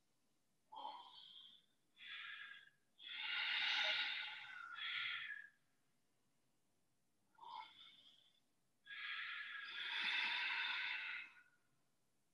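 Ujjayi breathing: slow, audible breaths hissed through a narrowed throat. There are several breaths, two of them long, of about two and a half seconds each.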